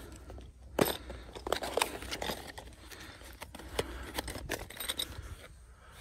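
A small cardboard box of loose T-bolts and nuts being opened by hand: cardboard flaps rustling and the metal hardware clinking inside, with a sharp click a little under a second in and a run of small clicks and knocks after.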